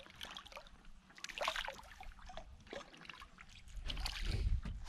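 A small golden dorado splashing and thrashing at the water's surface beside the boat as it is reeled in on the line, in short irregular splashes, with low thuds near the end.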